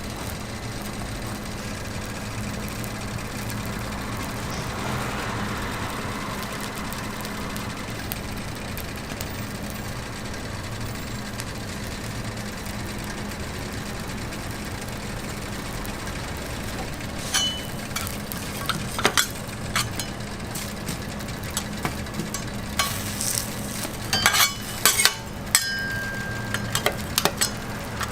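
Food frying on a street-stall griddle over a steady low hum, with sharp clinks and taps of metal cooking utensils, many of them in the second half.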